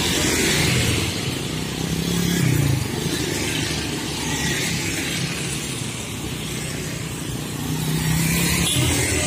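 Small motorcycles and motor scooters passing one after another at low speed, their engines growing louder as each one goes by.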